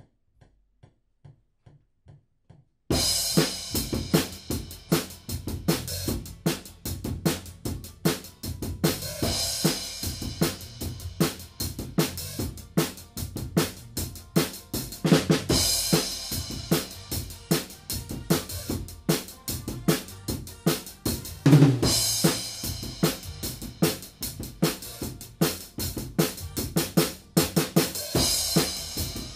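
Drum kit with Soultone cymbals played in a steady groove, snare, bass drum and hi-hat, with a cymbal crash about every six seconds. It is preceded by a few faint, evenly spaced ticks, and the kit comes in with a crash about three seconds in.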